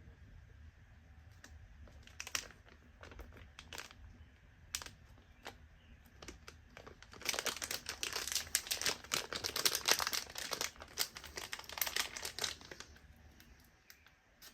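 Packaging of trading-card boxes and value packs being handled and unwrapped: crinkling and rustling with scattered clicks and taps, busiest from about seven to thirteen seconds in.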